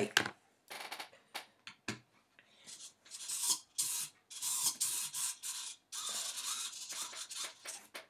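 Small hobby servo motors of a pan/tilt head whirring in short buzzing bursts one after another as a joystick swings them back and forth.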